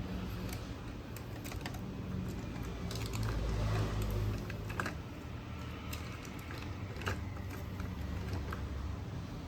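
Scattered small clicks and taps of plastic printer parts being handled during disassembly of an Epson L6290 inkjet printer, over a steady low hum, with a brief low rumble a few seconds in.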